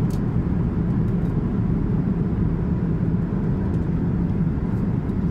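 Steady cabin drone of an Airbus A350-1000 in flight: a low, even rumble of engines and airflow.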